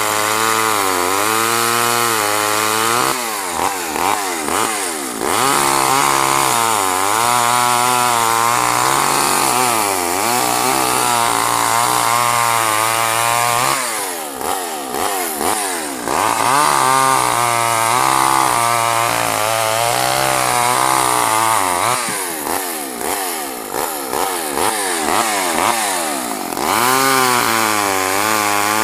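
Craftsman two-stroke chainsaw run hard on the throttle, its engine pitch repeatedly dropping and recovering as it bogs down in the cut. The chain is dull, so it gnaws and chews through the wood rather than cutting cleanly.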